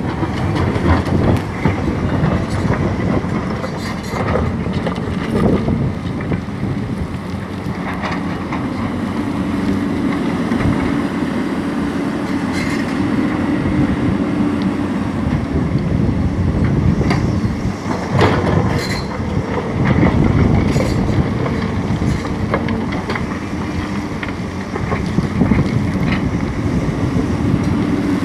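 Several hydraulic excavators at work: diesel engines running steadily under load, with scattered metallic clanks and knocks.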